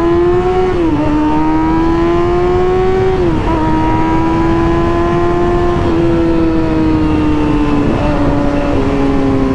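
Kawasaki ZX-6R inline-four with an M4 GP exhaust running at high, steady revs under way, heard from the rider's position with wind rush. The engine note climbs slowly, then drops quickly twice, about a second in and again after three seconds, as the rider shifts up. It then holds nearly steady, easing down slightly.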